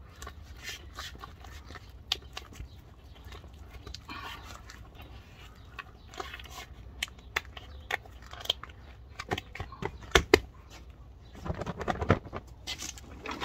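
Clicks and rustling as the mesh fabric grass-catcher bag of a walk-behind lawn mower is snapped onto its frame, with sharper snaps about seven to ten seconds in and a louder rustle of the bag near the end.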